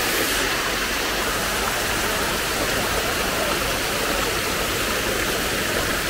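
Waterfall water babbling and rushing, a steady, even noise without change.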